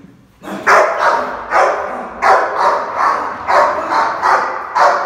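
Rottweiler barking angrily in a run of about nine loud barks, starting about half a second in: aggression over its food.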